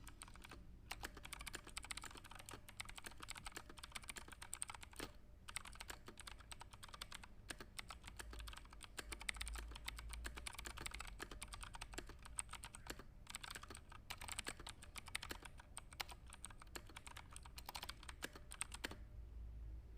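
Fast, continuous typing on a computer keyboard: a rapid stream of key clicks with a few brief pauses, stopping near the end.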